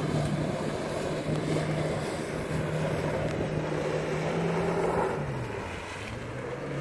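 Jet ski engine running hard to drive a flyboard's water jet: a steady engine drone over the rush of spray. About five seconds in the revs drop and the engine note falls.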